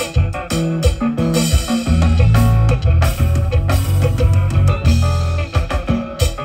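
Konpa band music played on electric guitar, bass guitar and drum kit, with a steady dance beat.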